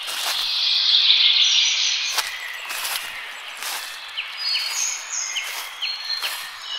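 Forest birds calling: a loud burst of rapid, dense chirring over the first two seconds, then a bird repeating a short, upward-flicking note about three times a second. Faint, evenly spaced crunches of footsteps on a gravel path sound beneath.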